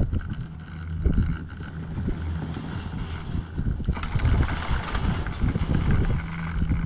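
Wind buffeting the microphone of a rider on a moving high-speed quad chairlift, a gusty low rumble with faint steady tones behind it. About four seconds in, a hiss of rushing air rises sharply and stays.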